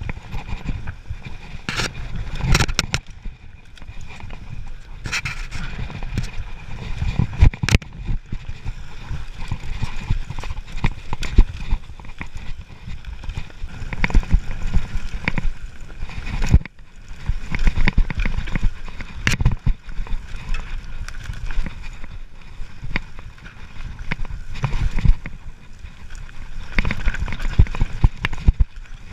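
Mountain bike descending a steep, loose dirt trail, heard from a camera worn by the rider: a constant low rumble of tyres on dirt with frequent, irregular sharp clunks and rattles of the bike's frame, chain and suspension over bumps.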